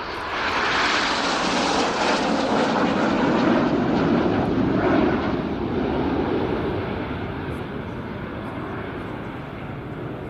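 Jet noise from a formation of BAE Hawk T1 jets flying past: a loud roar that peaks in the first half, falls in pitch as the jets go by and fades slowly toward the end.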